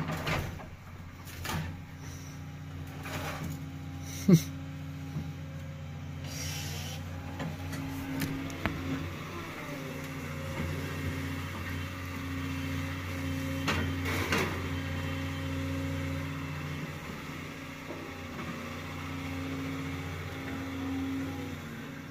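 Steady diesel engine drone from the idling truck and working Doosan excavator, with scattered metal clanks and knocks as the excavator's grapple takes scrap off a trailer. The sharpest knock comes about four seconds in.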